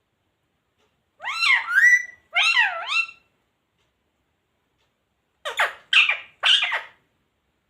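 Indian ringneck parrot vocalizing: two loud phrases with sweeping rises and falls in pitch, then, about five seconds in, three short harsh squawks in quick succession.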